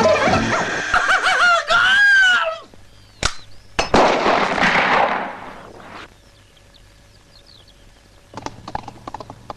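Music stops, then two sharp gunshots half a second apart, the second followed by a rush of noise lasting about a second and a half. Faint bird chirps and scattered clicks follow.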